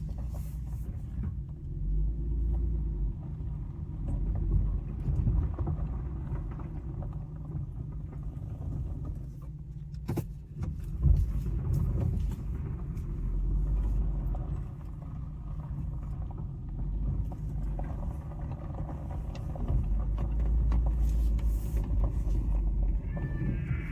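Steady low rumble of a car heard from inside the cabin, with a single sharp click about ten seconds in and a brief pitched sound near the end.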